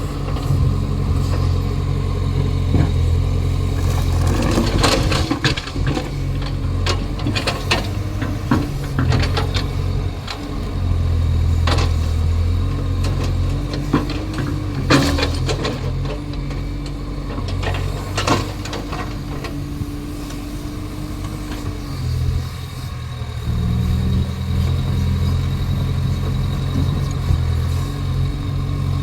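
Excavator's diesel engine running steadily with a deep, continuous hum that rises and falls a little in level. Scattered sharp knocks come through it, several in the first third and a few more later.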